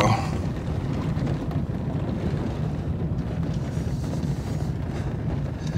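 Steady wind noise on the microphone over the low, steady hum of a slowly moving truck.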